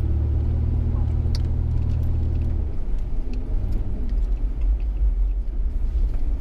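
Off-road vehicle's engine running during a drive: a steady low drone that drops away about two and a half seconds in, leaving a lower rumble.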